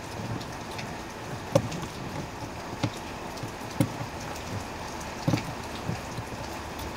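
A handful of irregular light knocks and clicks from hands working on the blower motor resistor and its wiring behind the glove box of a Jeep Commander, the sharpest about a second and a half in, over a steady hiss.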